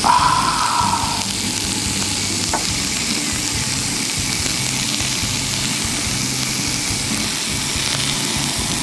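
Prawns in their shells sizzling on a hot gas grill: a steady frying hiss. A short higher-pitched sound stands out in the first second.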